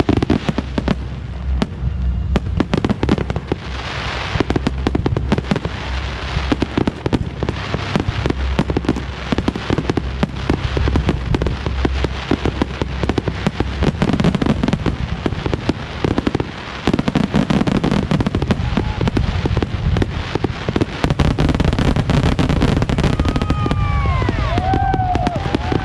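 Fireworks display at full barrage: dense, rapid crackling and popping over continuous booming shell bursts, with whistling glides among them near the end.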